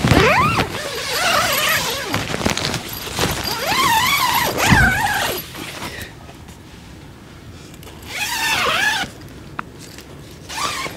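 Zipper on a Kampa Hayling Air 6 tent's inner bedroom door being run open in several long pulls with pauses between, with the nylon panel rustling. The solid blackout panel is being unzipped to bare the mesh window while the bottom section stays closed.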